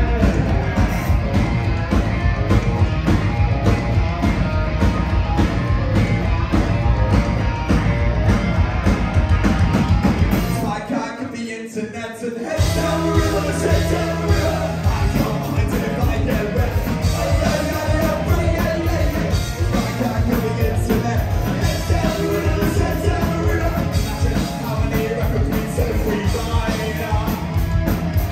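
Live rock band playing loud and full: a singer over electric guitar, bass and drums. The music dips briefly about eleven seconds in, then the full band comes back in.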